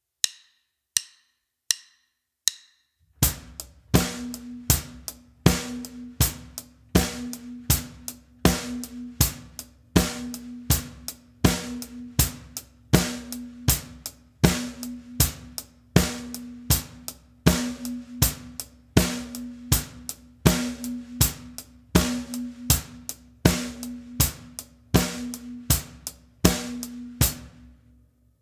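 Acoustic drum kit playing a four-on-the-floor groove at 80 BPM: bass drum on every beat together with the snare, and hi-hat in eighth notes. It starts after four count-in clicks and stops about a second before the end.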